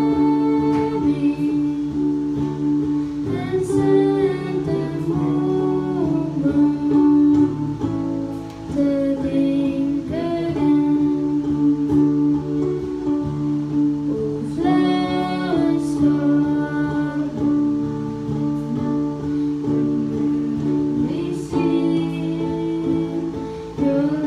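Acoustic guitars played with a voice singing over them, live through microphones and a small amplifier.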